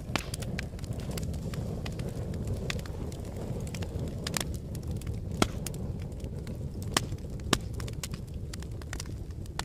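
Wood fire burning in a fireplace: a steady low rumble of flames with frequent sharp crackles and pops. Three pops stand out as louder, about five and a half, seven and seven and a half seconds in.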